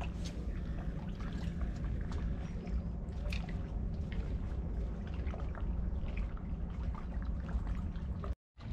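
Small waves lapping and trickling at the river's edge over a steady low rumble. The sound cuts out abruptly just before the end.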